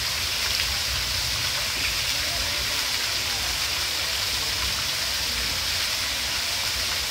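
Water jets of a large multi-jet park fountain falling and splashing into its basin: a steady, even rush of water.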